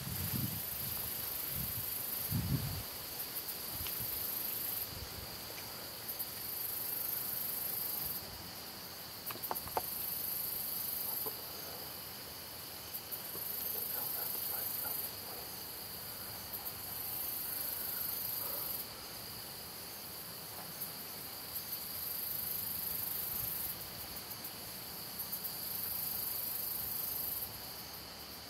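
Chorus of field insects: a very high-pitched trill that switches on and off in spells of about two seconds, over a steady, thinner high buzz.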